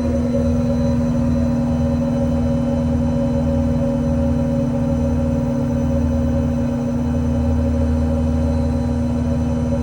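American Eagle 30P hydraulic air compressor running on the service truck, powered off the idling 6.7 Powerstroke diesel. It gives a steady hum with a higher tone on top as it builds tank pressure.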